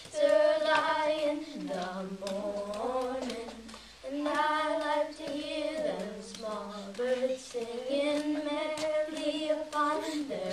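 Children singing a slow song together, holding long notes that step up and down, with a few faint taps mixed in.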